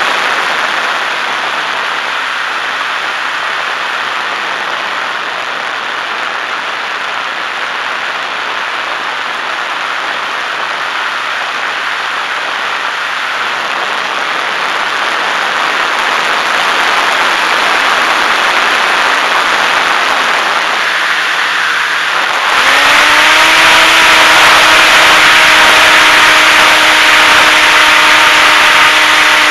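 Wind rushing past the onboard camera of a HobbyZone Super Cub RC plane gliding with its electric motor throttled off. Near the end the motor comes back on, a propeller whine that rises briefly in pitch and then holds steady over louder wind noise.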